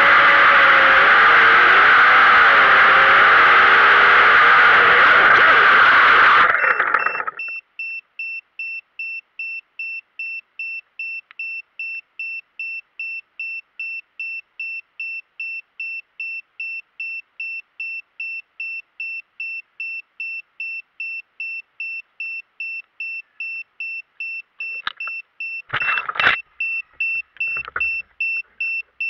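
Quadcopter's brushless motors and propellers whining at speed, pitch wavering with throttle, then cutting off suddenly about six seconds in as the quad crashes. After that the downed quad gives off a steady train of short, evenly spaced high beeps, with a few knocks and rustles near the end as it is handled.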